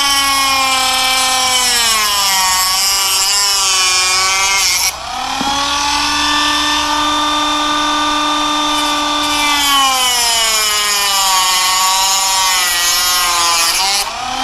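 Rotary tool with a cutoff wheel cutting through a carbon-fibre battery mount plate: a steady high whine whose pitch sags as the wheel bites into the carbon and climbs back as it frees up. There is a brief dip about five seconds in before a second pass.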